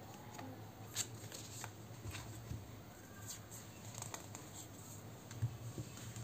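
Tarot deck being shuffled by hand: a faint papery shuffle with a few short, sharp clicks of cards here and there.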